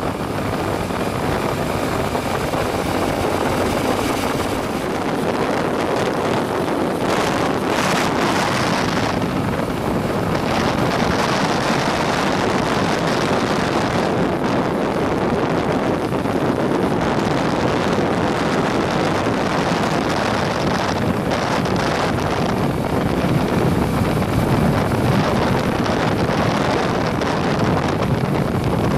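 Heavy wind noise buffeting the microphone, with a vehicle running underneath it; the level rises and falls a little but never stops.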